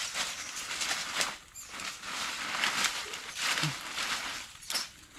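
Irregular scuffling and rustling in dry soil and stubble, coming in short uneven bursts.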